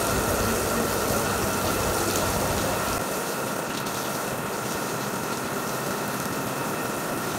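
Water spraying from a garden hose onto a soaked fleece blanket on a stone floor, a steady hiss and splash as the soap is rinsed out.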